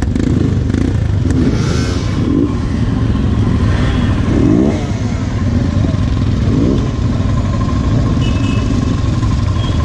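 Several motorcycle engines running close by, a Royal Enfield Himalayan's 411 cc air-cooled single-cylinder among them, with short revs rising in pitch about two, four and six and a half seconds in over a steady low rumble.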